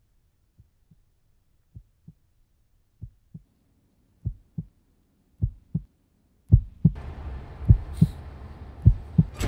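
Heartbeat sound effect: paired low thumps, about one beat a second, growing steadily louder. About seven seconds in, a hissing swell rises under the beats.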